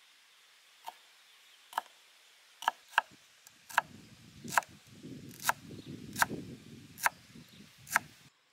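A kitchen knife chopping cilantro roots on a wooden cutting board: about ten sharp knocks of the blade on the board, roughly one a second, with a low rumble underneath from about four seconds in.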